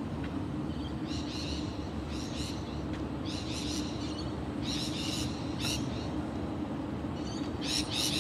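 Outdoor background: a steady low hum, with small birds chirping in short bursts every second or so.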